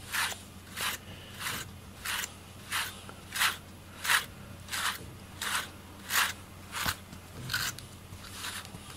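A slicker brush with fine, densely packed wire pins raked through a cat's fur in short, even strokes, about three every two seconds, each a brief scratchy rasp.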